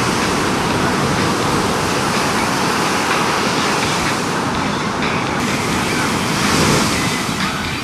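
Ocean surf: a steady rush of breaking waves, swelling louder near the end.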